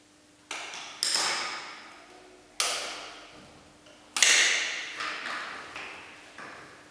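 A series of sharp taps or knocks, four strong ones in the first four seconds and fainter ones after, each trailing off in a ringing fade of about a second.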